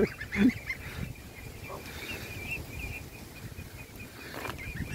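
Young geese: one short honk right at the start, then only faint high peeping over a low background rumble, with a single knock near the end.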